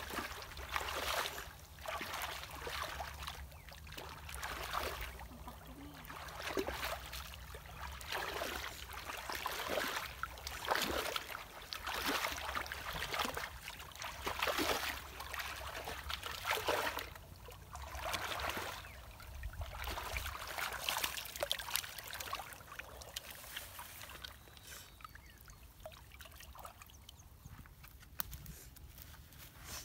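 Shallow stream water sloshing and splashing as people wade through it and grope about in it by hand, in irregular swishes every second or two that die down near the end.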